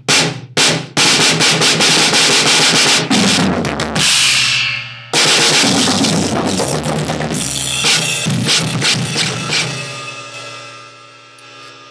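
A drum kit played with a single bass drum pedal: a fast, dense run of bass drum and snare hits for about five seconds. Then a brief break and a loud hit, after which the kit rings on and fades away toward the end.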